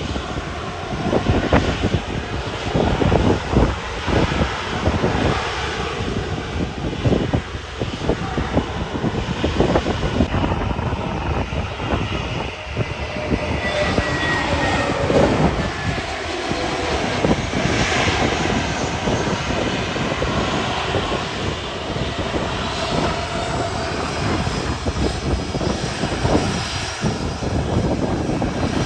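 Airliner engines running loud as a plane passes close by, with a faint falling whine about halfway through. Gusty wind buffets the microphone.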